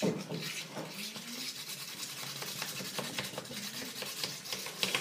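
A utensil stirring and scraping a thick shampoo-and-detergent slime mixture in a container, in quick, irregular strokes that start suddenly.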